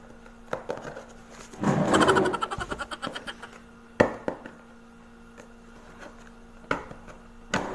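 Taped cardboard shipping box being handled and pried at. A brief louder burst comes about two seconds in, then a sharp knock about four seconds in and two more knocks near the end.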